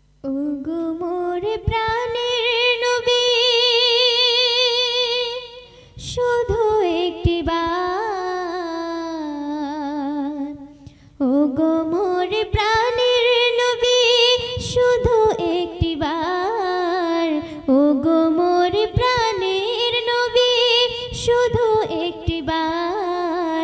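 A girl singing the opening of a Bangla gojol (Islamic devotional song) solo into a microphone: long drawn-out wordless notes with heavy vibrato, in four phrases with short breaths between them.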